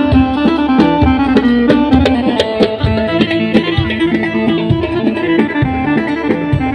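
Loud instrumental dabke folk music: a plucked-string melody over a steady drum beat.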